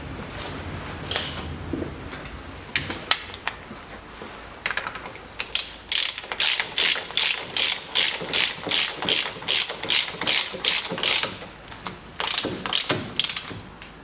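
Ratchet wrench clicking in an even rhythm of about three strokes a second as the front drive-shaft hub nut is run down, with a few more strokes near the end; a few scattered tool clinks come before it.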